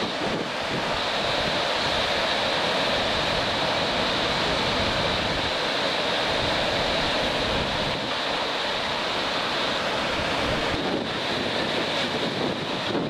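Steady rush of tropical-storm wind and waves, with the wind buffeting the microphone.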